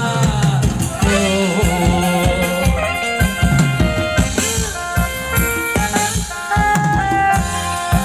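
Thai ramwong dance music from a live band: a steady drum beat under a melody, which turns to held, steady notes about three seconds in.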